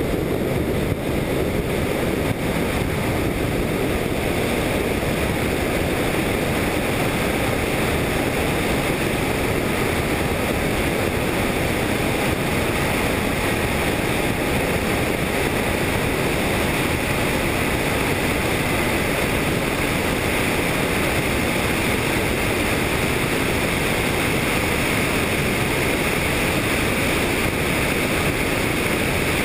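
Helicopter in flight: a loud, steady rush of rotor, engine and wind noise that keeps up without a break.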